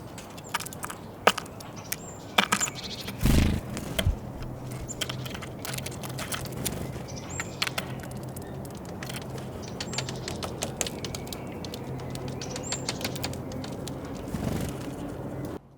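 Great tits at a feeder hammering and pecking at seeds: many sharp, irregular clicks and taps, with a few short, high call notes now and then. A heavy low thump about three seconds in, and a low steady hum underneath from about four seconds on.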